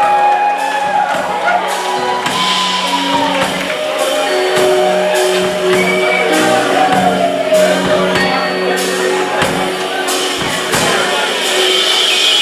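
Live band music: a band playing on stage, with held and bending pitched notes over steady drum hits.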